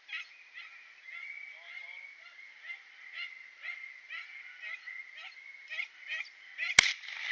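Beagle pack baying on a rabbit's trail in quick repeated cries, then a single shotgun blast near the end as the rabbit is shot.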